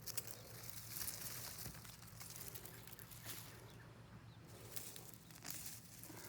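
Faint rustling and crackling of dry garlic stalks and loose soil as garlic bulbs are pulled from a raised bed by hand, with a few sharper snaps scattered through.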